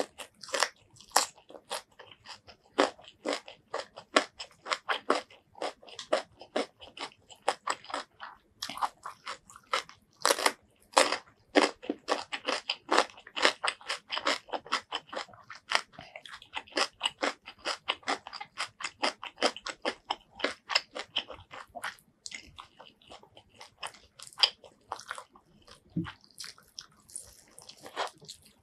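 Close-miked crunching and chewing of crisp raw green vegetables in the mouth, many sharp crunches a second, with a bite into a fried chicken drumstick near the end.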